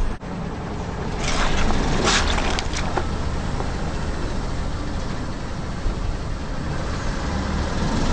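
A car's engine running low and steady, with a few short crackling noises between about one and three seconds in.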